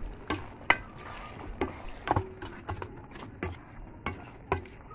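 Metal spoon clinking and scraping against a cooking pan while stirring beef, onions and sauce: about ten sharp, irregular clicks over a faint hiss.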